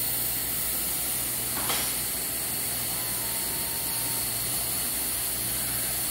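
Steady hiss with a low hum of shop machinery, with a single short click about a second and a half in.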